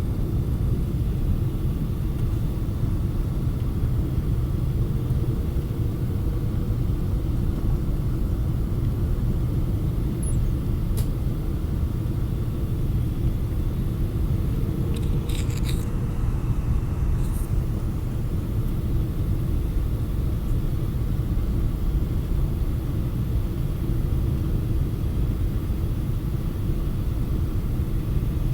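Steady low rumble of a Boeing 777-200 airliner in flight on approach to landing: engine and airflow noise. A few faint brief clicks come about halfway through.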